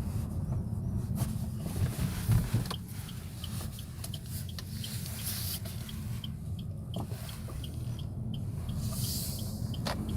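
Suzuki Vitara's abnormal noise: a short, high chirping squeak repeating about two to three times a second over the low rumble of the car running, with a few knocks. The noise is still there after a repair.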